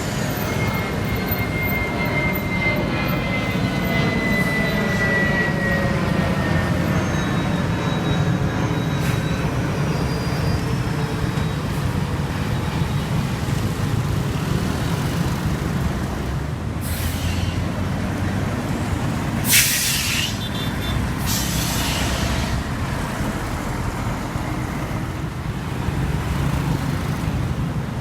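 Heavy trucks' diesel engines running with a steady low rumble, a whine falling in pitch over the first few seconds. Three short air-brake hisses come a little past the middle, the second the loudest.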